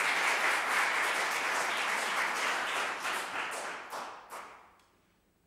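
Audience applause, dense and steady, thinning to a few last scattered claps about four seconds in and then dying away.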